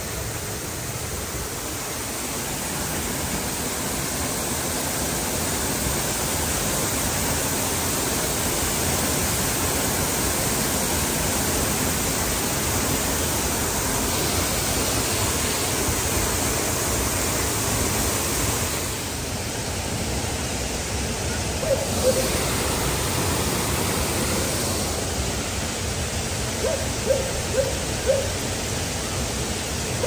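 Loud, steady rush of a waterfall heard from right behind the falling water, a dense roar with no letup. A few short squeaky sounds cut through it about two-thirds of the way in and again near the end.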